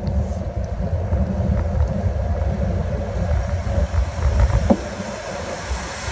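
Wind buffeting the microphone of a moving bicycle, a heavy, uneven low rumble, with one short squeak about two-thirds of the way in. Near the end the hiss of car tyres on the wet road starts to rise.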